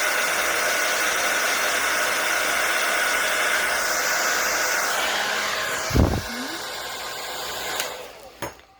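Hand-held blow dryer with a nozzle attachment blowing steadily, a rushing noise with a faint steady whine. About five seconds in its pitch falls as it winds down, there is a thump about six seconds in, and it cuts off with a click near the end.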